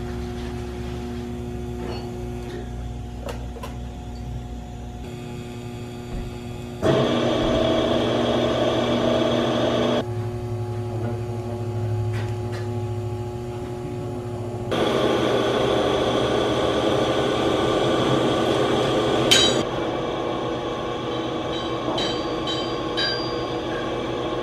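TIG welding on a steel exhaust pipe: the welder's steady hum and the arc's hiss, in stretches that change abruptly in loudness and tone. A few sharp clicks come near the end.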